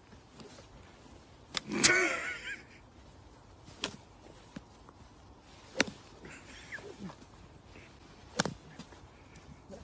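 A golf club striking the sand in a bunker, a series of sharp hits about every two seconds: repeated attempts to hit the ball out of the bunker. A short vocal cry follows the loudest hit, about two seconds in.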